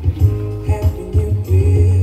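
A song playing, with a strong bass line and a singing voice.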